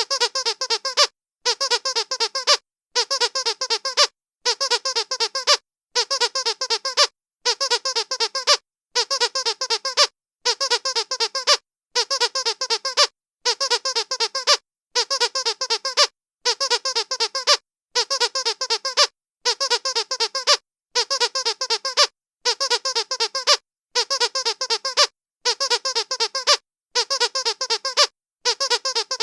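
Squeaky dog toy squeezed in quick runs of high squeaks, each run lasting about a second and repeating about every second and a half as the same run looped over and over.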